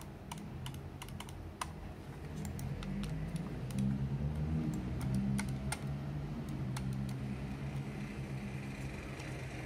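Fingers pressing and rubbing textured grip tape onto a Razer Viper Mini gaming mouse's plastic shell: quick, sharp little clicks and taps, dense at first and then sparser, over a low rubbing handling noise that grows louder in the middle.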